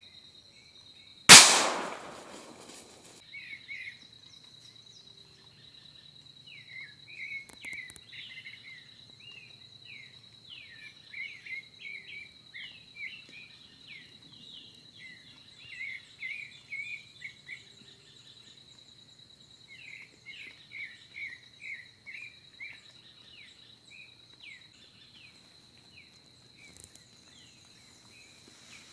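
A single gunshot about a second in, dying away over a second or two, fired at wild boars. After it come runs of short, high, chirping calls over a steady high-pitched tone.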